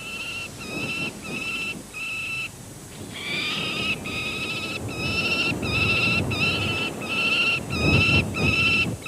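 Peregrine falcon giving a long series of harsh, repeated calls, about two a second, with a short pause about two and a half seconds in.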